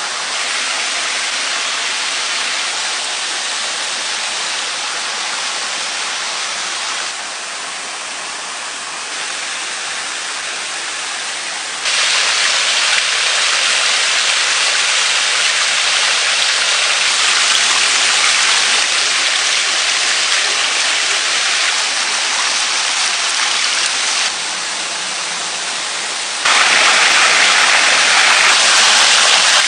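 Shallow, rocky stream rushing steadily over stones, a continuous wash of water noise that jumps louder about twelve seconds in and again near the end.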